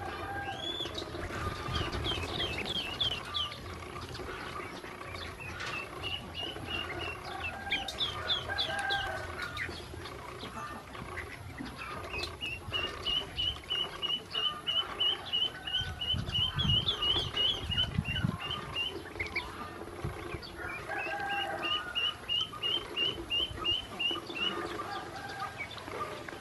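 A group of ducklings peeping in quick runs of short high calls, several a second, while they feed from a steel bowl, with scattered light clicks of bills pecking.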